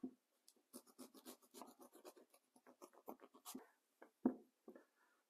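Steak knife sawing through the crust of a freshly baked gluten-free loaf, a quick run of faint scratchy strokes, then a single louder knock about four seconds in.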